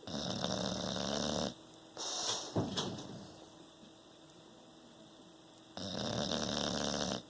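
Bulldog snoring in its sleep: a long snore, a shorter one about two seconds in, then a pause of nearly three seconds before another long snore near the end.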